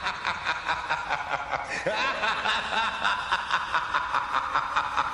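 Laughter sound effect: a rapid, high-pitched laugh of many quick 'ha' pulses, about seven a second, running without a break.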